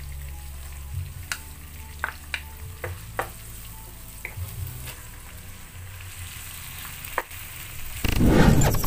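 Chopped onion sizzling in oil in a wok, with a wooden spatula knocking against the pan now and then. About eight seconds in, loud music cuts in suddenly.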